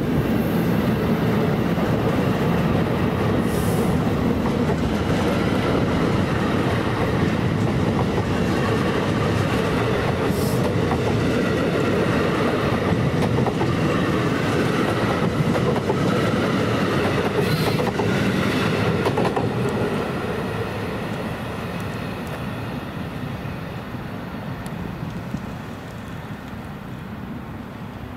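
NJ Transit bilevel passenger coaches rolling past at close range: a steady rumble with the wheels clicking over rail joints, and a few brief high-pitched squeaks. The noise fades away over the last several seconds as the end of the train moves off.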